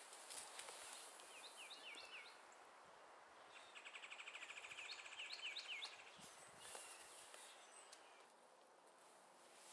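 Faint outdoor ambience with birds calling: a few short chirps about a second and a half in, then a rapid trill with more chirps around four to five seconds in. Soft rustling and a few clicks in the first second, as the nylon hammock takes a person's weight.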